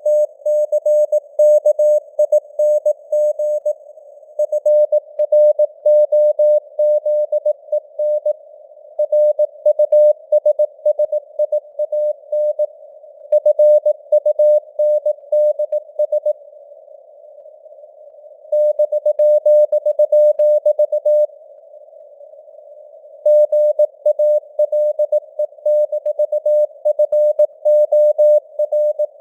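Morse code (CW) sent at 18 words per minute: a single pitched tone keyed on and off in dots and dashes, with short pauses between words. A narrow band of simulated radio hiss around the tone stays audible in the gaps.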